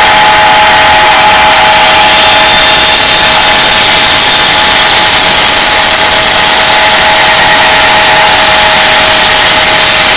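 Belt grinder running, with the thin, black-coated steel edge of a Cold Steel Latin machete held against the moving belt. The result is a steady grinding hiss over a constant motor whine, as the blade is re-edged and its coating is ground off.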